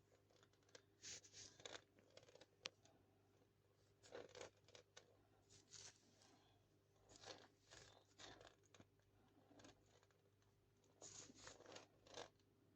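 Faint, irregular rustling and scraping, in short clusters every second or two, as an object is handled and rubbed, over a faint steady low hum.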